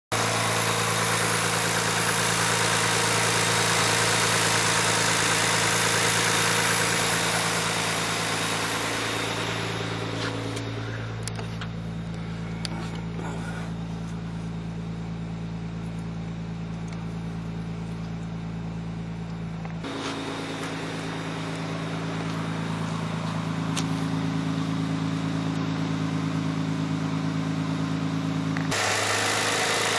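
Nissan 300ZX Twin Turbo's 3.0-litre twin-turbo V6 idling steadily. Through the middle it sounds muffled, as heard from inside the cabin, and near the end it opens up again behind the car at the tailpipes.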